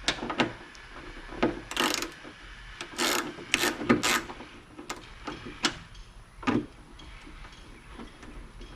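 Ratchet wrench working bolts loose: scattered sharp clicks and a few short rasping ratchet strokes, most of them between about two and four seconds in.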